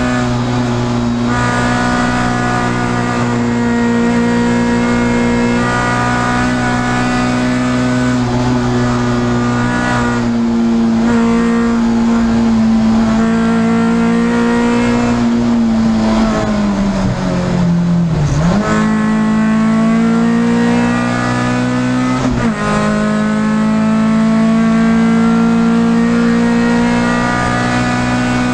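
Peugeot 306 S16 Group A rally car's four-cylinder 16-valve engine heard from inside the cabin, held at high revs under hard acceleration. Its pitch falls steadily for about two seconds past the middle as it slows, then climbs again, with short breaks at the gear changes.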